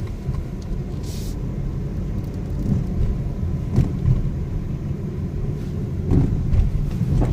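Car turning right with a low grinding rumble from underneath, broken by a few short knocks; this is the grinding noise that comes on only when the car turns right.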